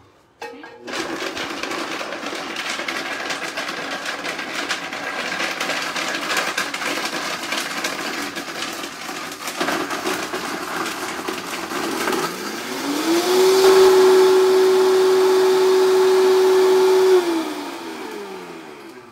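Vitamix blender grinding almonds, garlic, pecorino, tomato paste and olive oil into pesto, with the clatter of solid pieces against the blades. About twelve seconds in, the motor whine rises as it is turned up to a higher speed and holds steady, then winds down near the end.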